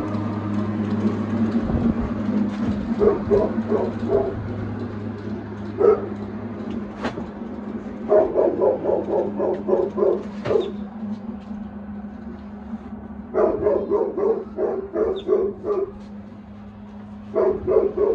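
A dog barking in several runs of quick barks, about four a second, with a steady low hum underneath.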